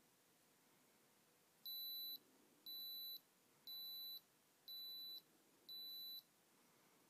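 Digital oral thermometer beeping five times, about once a second, each a short high tone: the signal that the temperature reading is done.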